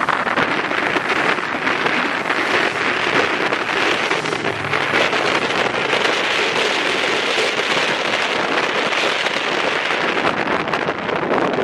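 Steady rushing wind noise buffeting the microphone of a moving vehicle, mixed with road noise.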